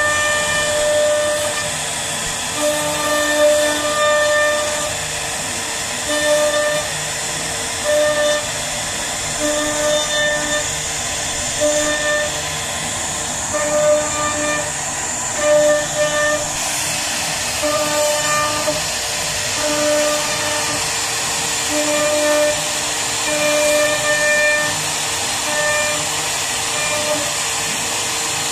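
CNC wood router running as its spindle bit carves a relief pattern into a wooden panel. A steady high whine and hiss, with a pitched hum that starts and stops every second or so as the head moves.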